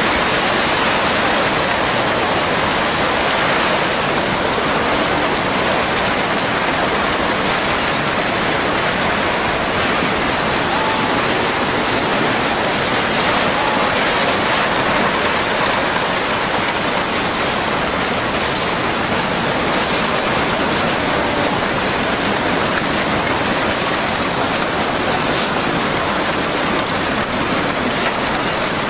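Tsunami surge sweeping through a town: a loud, steady roar of rushing water and churning debris.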